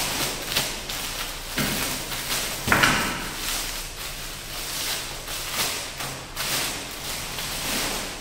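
Clear plastic wrapping crinkling and rustling as a boxed circular saw is handled and lifted out of a cardboard box, with a knock about three seconds in.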